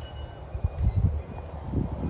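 Strong storm wind gusting against the microphone as a low, uneven rumble that surges about halfway through and again near the end, with a few faint high tinkles from a wind chime.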